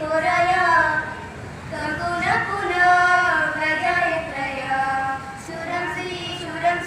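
Young girls' voices singing a melody, holding long notes and pausing briefly between phrases.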